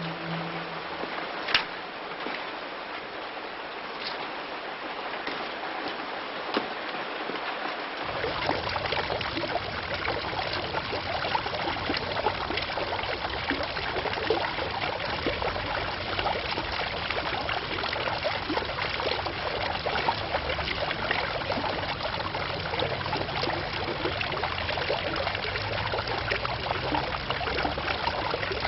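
Running water for a bath, a steady splashing spray that becomes fuller and heavier about eight seconds in. Two light clicks come in the first few seconds.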